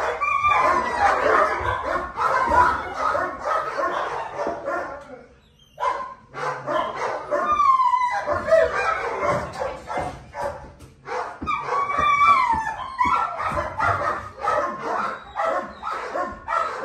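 Several dogs in shelter kennels barking almost without pause, with a brief lull about five seconds in and two drawn-out falling cries later on.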